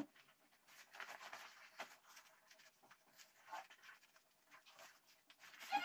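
Faint rustling of clothing as a jacket is pulled on and fastened, with a few soft ticks.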